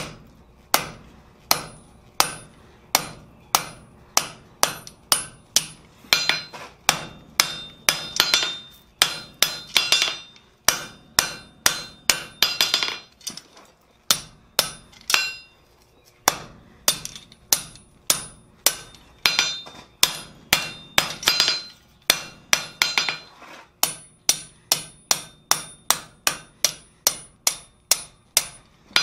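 Blacksmith's hand hammer striking a red-hot steel tong jaw on an anvil, about two blows a second, with the anvil ringing after the blows. The hammering pauses briefly about halfway through and again later.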